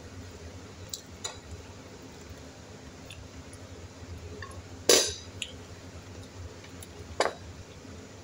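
Metal spoon clinking and scraping against a ceramic plate, a handful of short knocks with the loudest about five seconds in.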